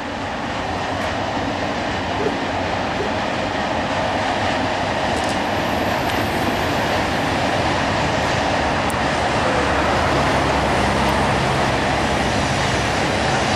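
Freight train of tank and hopper wagons rolling past, a steady rumble of wheels and wagons that grows slowly louder.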